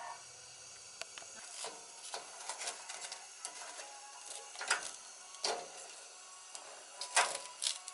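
Cooking chopsticks tapping and scraping on a metal wire grill rack as toasted rice cakes are lifted and turned over: a run of irregular light clicks and short scrapes, with a few sharper clicks about five seconds in and near the end.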